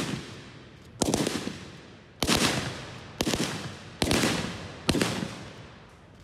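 Single gunshots, about one a second, five in all, each followed by a long echoing decay.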